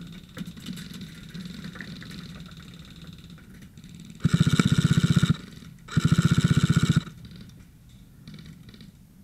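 Airsoft electric gun firing two full-auto bursts of about a second each, a fast even rattle of shots, the first about four seconds in and the second a second and a half later.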